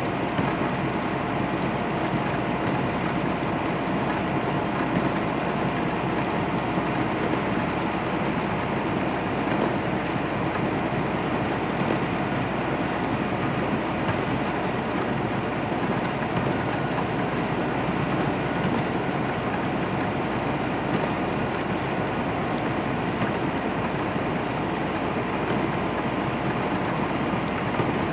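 Steady road noise inside a semi truck's cab at cruising speed on wet pavement: the engine's drone under the hiss of tyres on the wet road, unchanging throughout.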